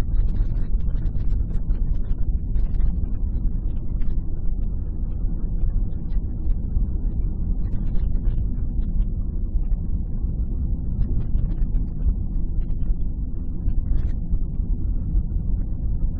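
A car's engine and road noise heard from inside the cabin while driving: a steady low rumble, with faint scattered ticks.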